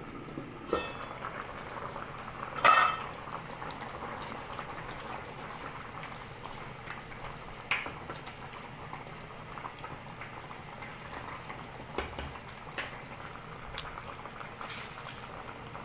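Pot of sinigang broth at a rolling boil, a steady bubbling hiss, with a loud metal clank about three seconds in as the stainless-steel lid is taken off, and a few lighter clinks of a spoon against the pot.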